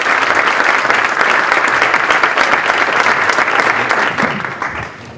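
Audience applauding, a dense steady clapping that dies down near the end.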